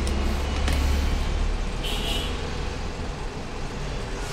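Low rumble of road traffic passing, loudest about a second in and then easing, with a brief high tone about two seconds in.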